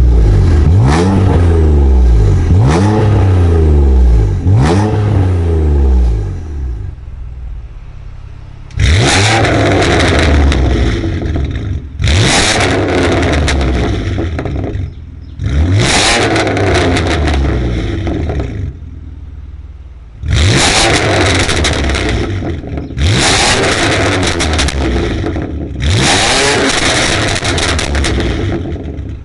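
BMW M2 Competition's S55 twin-turbo straight-six, fitted with a full Tubistyle exhaust and its particulate filter deleted, revving hard: three quick rev blips rising and falling, then six loud bursts of revving that start suddenly. Each burst is full of loud pops and crackles from the exhaust.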